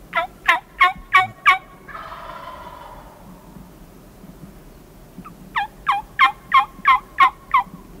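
Wild turkeys calling: a quick run of about five loud yelps, then a tom gobbling for about a second, then a second run of about eight yelps.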